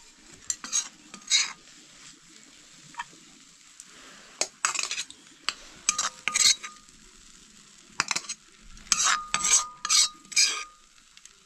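Metal spoon scraping and clinking against a metal plate of noodles, in short irregular strokes that bunch together in the middle and near the end, a few leaving a brief ring.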